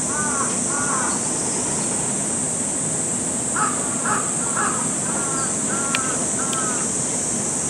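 A crow cawing in quick runs of short, evenly spaced calls: a few at the start, then about seven more from about three and a half seconds in.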